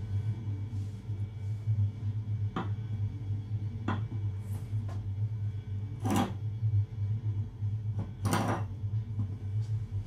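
Tableware being set down on a counter: light knocks about 2.5 and 4 seconds in, then two wine glasses placed with brief ringing clinks about 6 and 8.5 seconds in, over a steady low hum.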